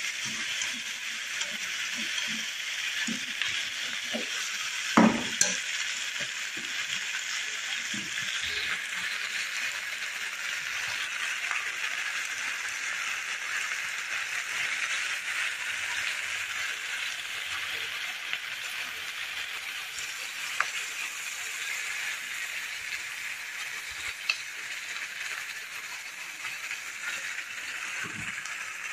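Ribs and vegetables sizzling steadily in a frying pan, with one sharp knock about five seconds in and a couple of faint clicks later.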